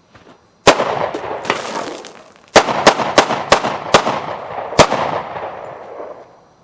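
Ruger SR1911 Commander pistol firing .45 ACP: one shot under a second in, a fainter report about a second later, then a quick string of five shots and a last one about a second after. Each report is followed by a long echo.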